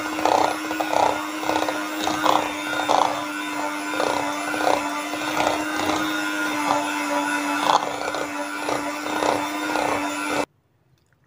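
Electric hand mixer running at a steady pitch, its beaters churning softened butter in a bowl with repeated scraping, creaming it until fluffy. It switches off abruptly near the end.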